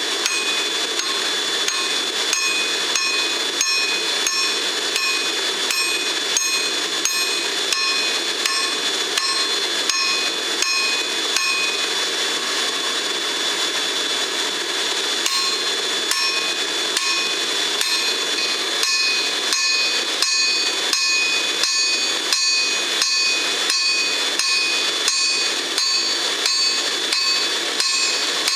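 Hand hammer striking a red-hot steel knife blade on an anvil in a steady rhythm of about two blows a second, each blow leaving the anvil ringing at several pitches. For a few seconds around the middle the blows ring less.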